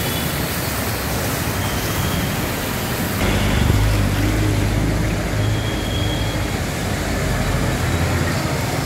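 Street traffic on a flooded road: motor-vehicle engines over a steady hiss. From about three seconds in, a bus engine close by adds a loud, low, steady hum.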